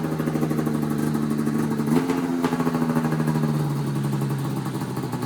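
Supercharged snowmobile engine running at a steady low speed, with a small rise in pitch about two seconds in and then a slow sag in speed. The owner says the sled runs on about one cylinder once it goes past idle.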